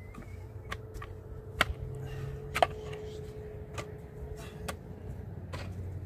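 A series of sharp, irregular knocks, about seven in all, the loudest two about a second apart early on, over a low rumble.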